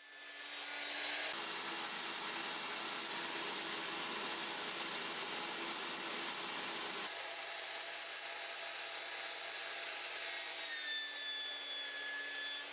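13-inch benchtop thickness planer with a helical cutterhead, planing a walnut slab with pine runners taped to its sides. It comes up to speed in the first second and then runs steadily. The sound is fuller and lower for the next six seconds or so, then turns thinner, with a high steady whine.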